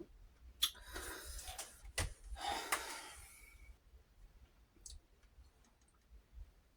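A person's mouth clicks twice, each followed by a long, breathy exhale of about a second. Only a few faint ticks follow.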